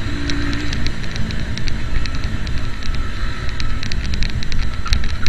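Yamaha Fazer 250 motorcycle running on the road, its engine buried in heavy wind rush on the camera microphone, with many scattered sharp clicks and rattles.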